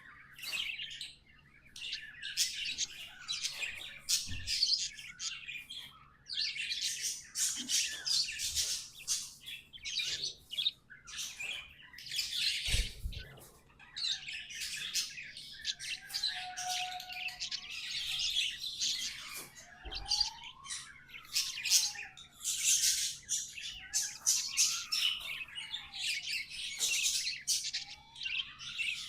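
Pet budgerigars chattering and warbling in a dense, continuous run of quick chirps, with a few rising-and-falling whistles in the second half. A few soft knocks sound under the birdsong.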